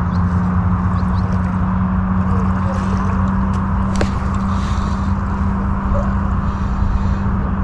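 A motor running steadily: a constant low hum with a hiss above it, and a few faint clicks.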